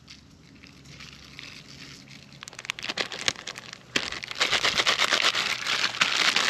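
Black pepper being ground from a pepper grinder: a gritty crackling of many fast, irregular clicks. It starts faint and sparse and becomes loud and dense about four seconds in.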